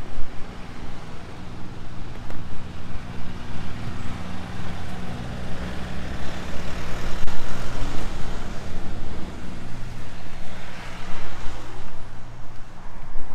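Street traffic: a vehicle engine running steadily close by, with other vehicles passing, the loudest about halfway through and again near the end.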